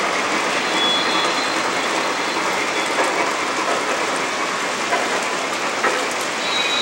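O scale model freight cars rolling over the track: a steady rolling rumble, with a few sharp clicks and a faint high wheel squeal about a second in and again near the end.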